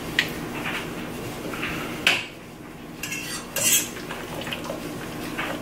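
Metal pasta server clinking and scraping against a stainless steel pot as cooked spaghetti is lifted out and moved into another pan, with a sharp clank about two seconds in and a few lighter clinks, over a steady low hum.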